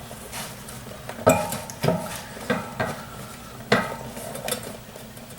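Hands working a rubber inner tube and tire onto a metal wheel rim: soft rubbing and handling noise broken by several short knocks and clicks, the sharpest about a second in and again near four seconds.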